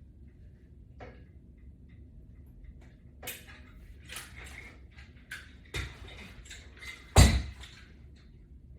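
Clicks and clatter of a metal carabiner and resistance band being handled and clipped onto another band, with one loud knock near the end.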